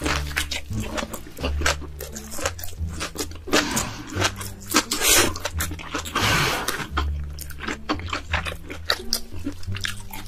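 Close-up eating sounds: rapid crunching, biting and wet mouth clicks, with two longer noisy slurp-like rushes about five and six seconds in. Background music with a low bass line plays underneath.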